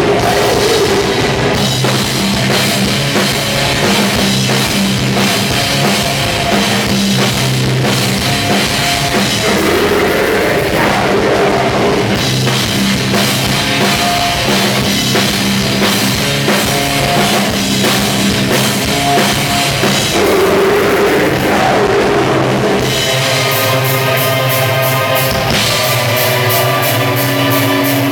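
Symphonic death/black metal band playing live: distorted guitars, bass and drums at full volume, with vocals at times. About 23 seconds in, the bottom end drops out and a thinner passage of sustained pitched notes over a fast, even high rhythm takes over.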